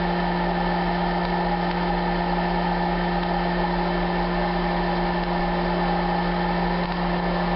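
Toastmaster 6203 hot-air popcorn popper's fan blowing steadily with a constant hum, while roasting coffee beans crack and pop through it in a rolling first crack.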